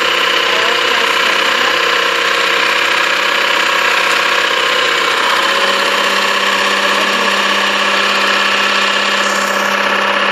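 Inalsa food processor motor running steadily with its citrus-press attachment, spinning the reamer cone as orange halves are pressed onto it; the hum shifts a little about halfway through.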